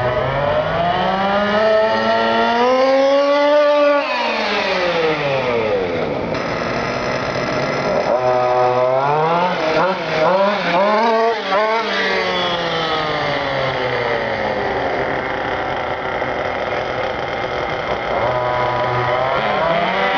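Engine of an FG radio-controlled car revving: the pitch climbs over the first few seconds and falls back, rises and falls in quick blips around ten seconds in, then slides slowly down and starts to climb again near the end.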